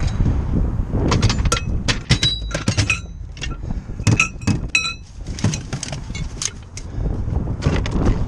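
A quick run of metal clanks and clinks, a few ringing briefly, from metal tools and parts being handled, over a steady low rumble of wind on the microphone.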